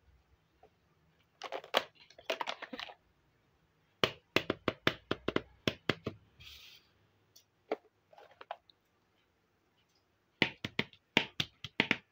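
Miniature plastic toy kitchenware (a small pot with its lid, a lidded cup) clicking and tapping as it is handled and set down on a hard surface, in several quick runs of clicks separated by short pauses.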